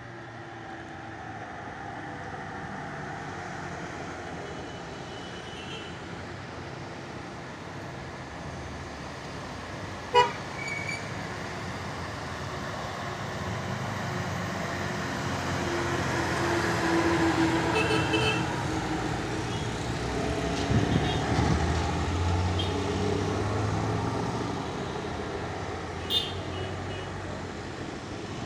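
Hill-road traffic: a bus engine running as it climbs toward and past the bend, growing louder to a peak about two-thirds of the way through, along with cars and motorcycles. Short horn toots sound several times, sharpest about a third of the way in and again near the end.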